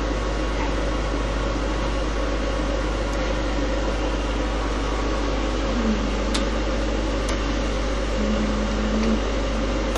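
A steady mechanical whir with a constant low hum underneath, with two short low tones about six and eight seconds in.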